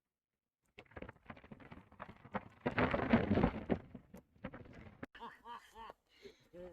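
Horses moving: a run of knocks and rustling, loudest about three seconds in, then a horse neighing with a wavering pitch near the end.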